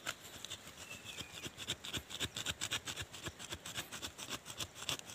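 A metal hand blade cutting through a serut (Streblus asper) tree root in the soil, in quick repeated strokes about five a second.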